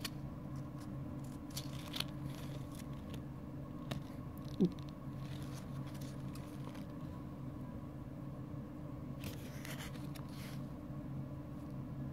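Paper pages of a small stapled photo flip book riffling under the thumb in short rustling flurries, the longest about nine to ten seconds in, over a steady low hum. About four and a half seconds in a brief falling pitched sound stands out as the loudest moment.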